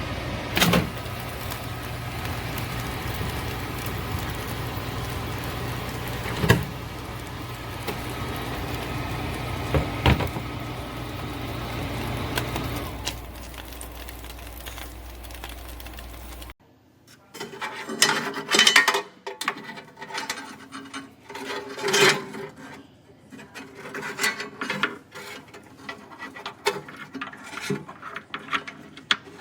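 Steady mechanical hum with three sharp knocks. About halfway through it cuts off abruptly, giving way to irregular scraping, rubbing and clicking, as of objects being handled.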